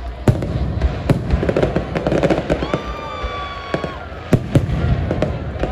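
Aerial firework shells bursting overhead: a string of sharp bangs at uneven intervals, the loudest pair about four and a half seconds in. Midway a high, steady tone sounds for about a second over the bangs.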